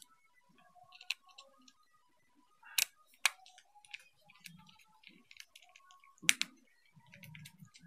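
Small precision screwdriver tightening screws into a plastic CCTV dome camera housing: scattered light clicks and ticks of the tip and screws against the plastic, with a few sharper clicks about a second in, near three seconds and just past six seconds, and soft handling noise.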